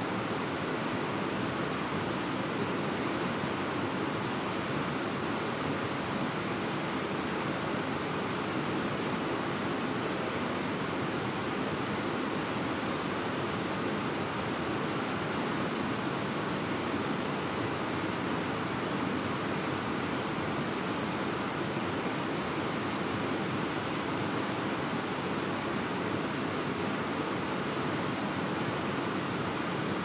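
Fast-flowing mountain river running over rocks: a steady, unbroken rush of white water.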